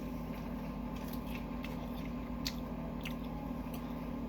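Chewing a Subway sub sandwich close to the microphone: scattered wet mouth clicks and smacks, over a steady low hum.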